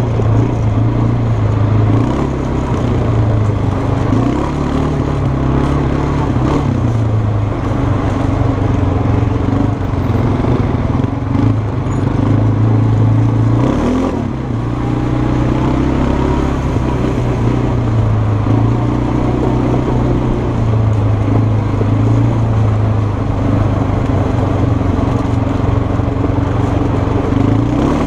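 Kymco 300 quad's engine running under throttle on a trail ride, its pitch rising and falling with the throttle, with a brief let-off about halfway through before it picks up again.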